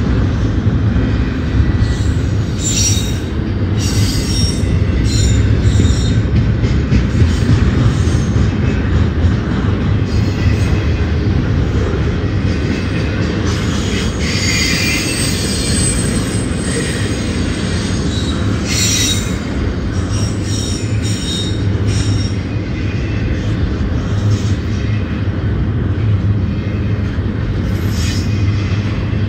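Double-stack intermodal freight cars rolling past: a steady low rumble of steel wheels on rail, broken by repeated high metallic wheel squeals, the longest about halfway through.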